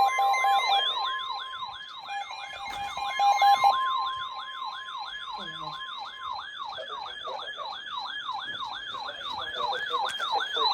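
Several weather radios alarming at once. A fast, siren-like electronic warble repeats about three times a second, over a steady alarm tone and short beeps that stop about halfway through.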